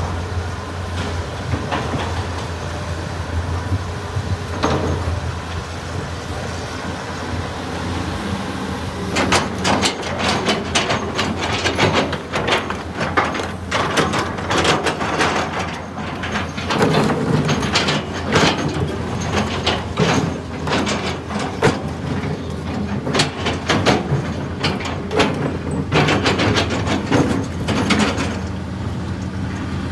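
Excavator's diesel engine running steadily, joined about nine seconds in by dense, irregular metallic clanking and scraping that keeps up until near the end.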